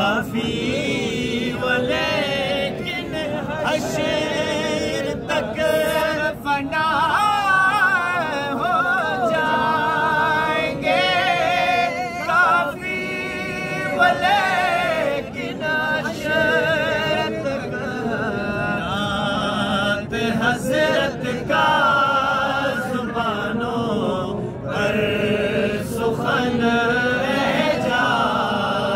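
Men's voices singing a naat, an unaccompanied devotional song in praise of the Prophet, in long, ornamented phrases with wavering glides in pitch and short pauses for breath.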